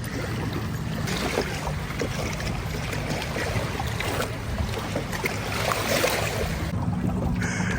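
Two-cylinder 25 hp Johnson two-stroke outboard running steadily with the boat under way, mixed with water rushing past the hull and wind. The motor has an intermittent misfire, traced to spark arcing between the plug boot and the plug.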